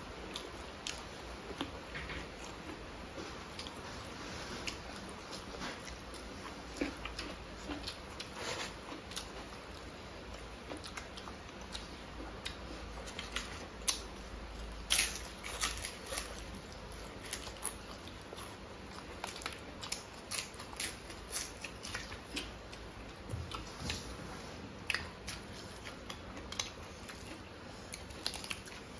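Two people eating rice and curry by hand: chewing, wet mouth and lip smacks, and fingers mixing food, heard as a steady run of short sharp clicks that grows busier about halfway through.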